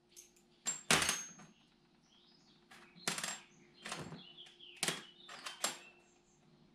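Small steel valve shims and metal valve-train parts clinking as they are handled and set down: about seven sharp clinks spread unevenly, some with a brief high ring.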